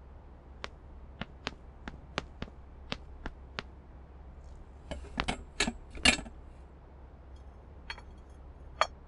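Teacups and a teapot clinking as drinks are served: a run of small light clicks, then a few louder ringing clinks about five to six seconds in.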